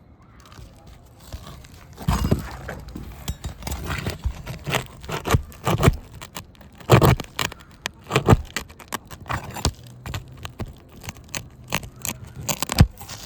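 Irregular scraping and sharp knocks of a snake tool being worked under roof shingles to hook and pull roofing nails, the loudest knocks about seven and eight seconds in and near the end.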